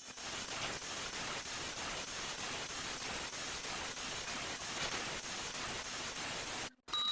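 Steady static hiss with a thin, high-pitched whine running through it, cutting off abruptly near the end.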